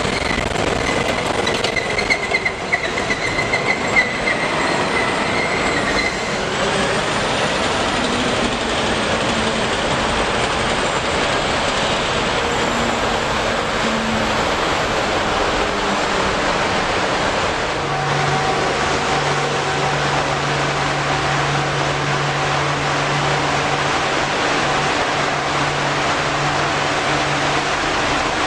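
Steady, loud rumble of vehicles and machinery in a ship's steel vehicle deck, with a high squeal through the first few seconds and a steady low hum joining about two-thirds of the way in.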